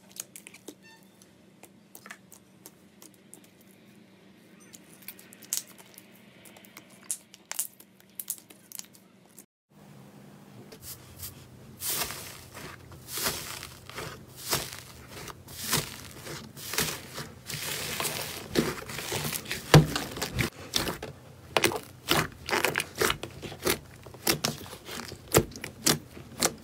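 Hands squishing and tearing slime: sparse soft squelches and clicks at first, then, after a break about ten seconds in, a dense run of crackling, tearing clicks and pops as crumbly purple slime is broken apart and kneaded.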